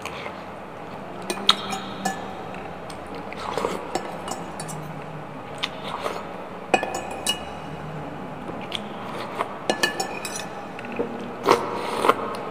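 Metal spoon and fork clinking and scraping against a glass bowl in irregular, sharp taps, some with a brief glassy ring, along with soft chewing of noodles.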